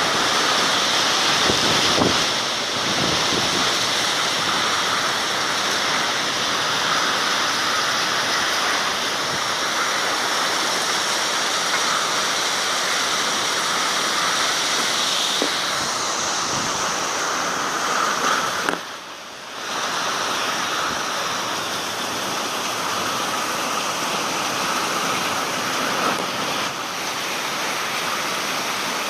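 Steady rushing noise of a thunderstorm: heavy rain and strong wind, dropping away briefly about two-thirds of the way through.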